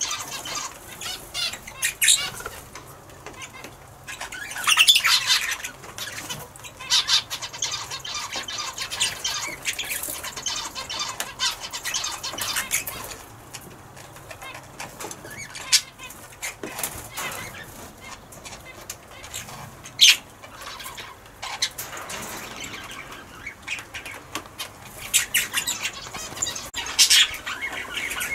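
Red-rumped parrots fluttering and moving about restlessly: irregular bursts of wing flapping and scratchy high-pitched sounds that come and go, with short sharp spikes here and there.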